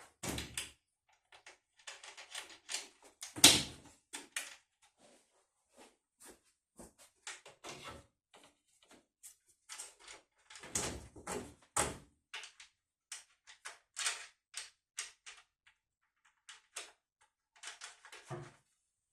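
Irregular clacks and knocks of hard parts being handled and set against each other, typical of the wooden frame parts of a folding kayak being fitted together. The loudest knock comes about three and a half seconds in, with a cluster of knocks around eleven to twelve seconds.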